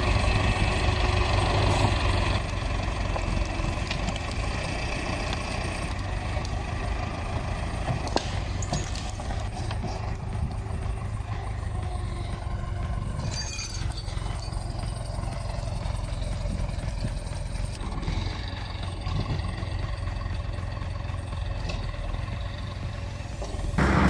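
A machine engine running steadily, with a change in the sound and a drop in level about two seconds in.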